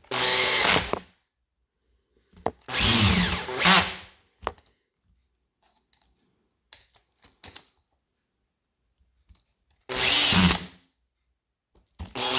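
Small electric screwdriver motor running in short bursts, about four runs of roughly a second each, driving the housing screws back into the plastic casing of a Hilti impact driver. A few faint clicks come between the runs.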